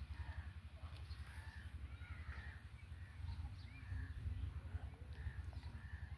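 Birds calling over and over in short, arched calls, over a steady low rumble.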